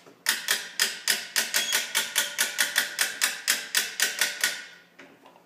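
Ratcheting come-along winch being cranked: a steady run of sharp clicks, about five or six a second, as it pulls the limbs of a compound crossbow in under a load of several hundred pounds. The clicking stops shortly before the end.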